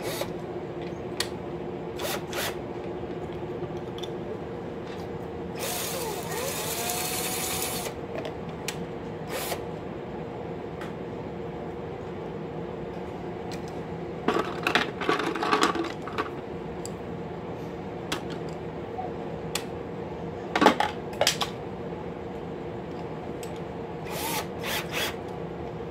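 Cordless drill motor running steadily, spinning a pencil crayon in a small handheld sharpener, with a brief scraping noise about six seconds in and scattered clicks and knocks from handling the pencil and sharpener.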